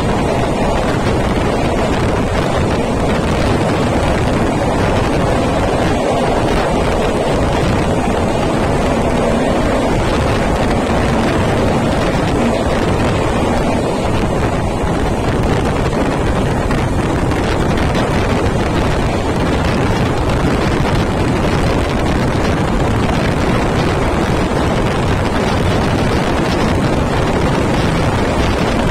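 Wind buffeting the microphone over the steady rumble of a passenger train running at speed, heard from outside the coach window.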